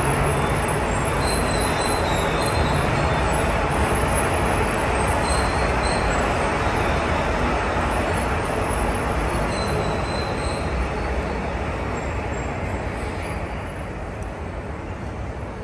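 Metro train running through an underground station: steady rail noise with a faint high wheel squeal, fading away over the last few seconds as it leaves.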